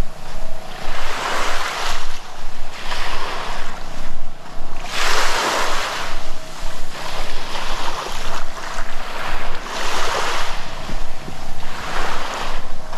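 Sea waves breaking and washing up a sandy beach, the hiss swelling and fading in surges every few seconds.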